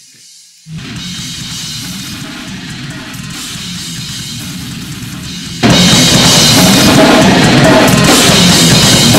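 Hi8 camcorder recording of a heavy metal band rehearsing: electric guitar through a Randall amp with a drum kit, bass drum and cymbals. It starts under a second in, and about five and a half seconds in it jumps much louder and fuller: the change from the raw tape audio to the version cleaned up with noise gate, EQ and dynamics.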